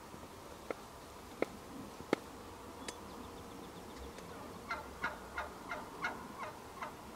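Wild turkeys calling: a few sharp single clucks, then from about halfway through a series of about eight yelps, roughly three a second.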